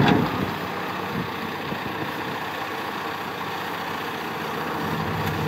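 John Deere 310SK backhoe loader's diesel engine idling steadily.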